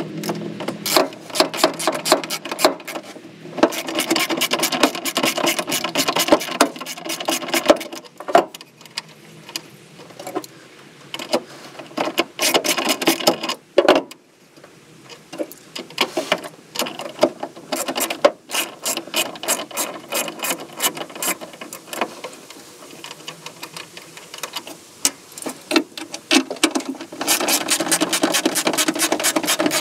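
Hand socket ratchet clicking in quick runs with short pauses, backing off the fasteners that hold a 1967 Firebird's taillight assembly. A longer, steadier run of clicking comes near the end.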